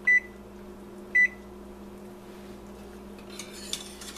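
Two short electronic beeps about a second apart as a timer is keyed in for the one-minute boil, over a steady low hum. Near the end a wire whisk starts scraping around the stainless saucepan.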